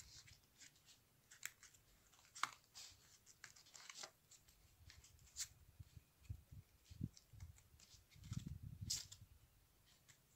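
Faint handling noise of EVA foam: scattered small clicks and rustles as fingers press a glued foam sepal onto a foam rose and turn it, with a few soft low bumps near the end.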